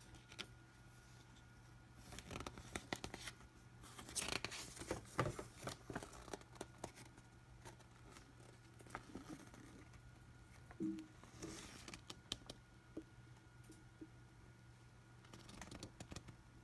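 Paper pages of a model-kit instruction manual being turned and handled, rustling and crinkling in short bursts. The rustling is busiest in the first half, with shorter rustles near the middle and again near the end.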